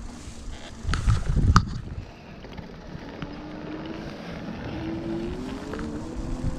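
Wind buffeting the microphone of a moving e-bike in the first two seconds, with a sharp click, then the e-bike's electric motor whining steadily and rising in pitch about five seconds in.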